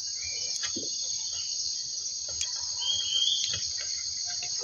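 Steady high-pitched insect chorus, with a few sharp clicks scattered through it and a brief chirp about three seconds in.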